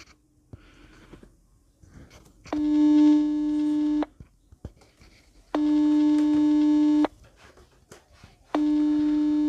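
Outgoing-call ringing tone from a smartphone's loudspeaker: three long, steady beeps of about a second and a half each, spaced about three seconds apart. The call goes unanswered.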